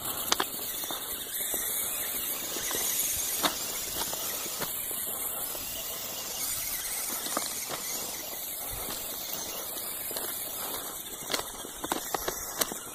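Tamiya Clod Buster RC monster truck's electric drivetrain giving a continuous high-pitched whine through hiss as it drives through mud, with a few sharp clicks, several of them near the end.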